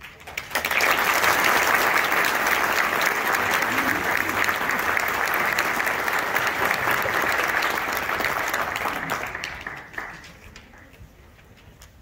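Audience applauding: the clapping starts about half a second in, holds steady and dies away about ten seconds in.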